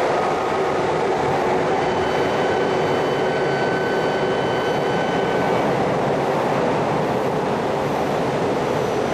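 A 200 series Shinkansen train pulling out of an underground station: its last car passes and its running noise carries on from the tunnel as it departs, echoing in the station. A faint thin whine sounds from about two to five and a half seconds in.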